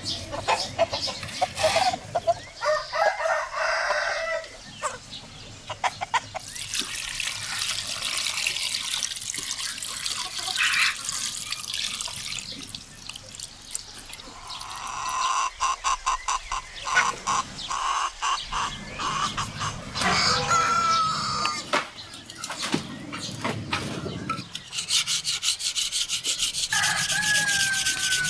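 Chickens clucking and a rooster crowing on and off, with one falling crow just before the end. Near the end a knife blade starts scraping along a piece of wood, a steady rasping.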